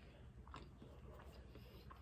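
Faint chewing: a few soft, scattered mouth clicks from someone eating a frosted cupcake.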